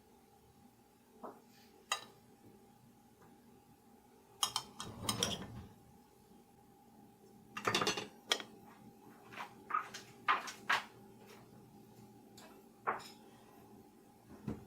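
Scattered clinks and knocks of dishes and utensils being handled, with two longer clattering stretches about five and eight seconds in, over a faint steady hum.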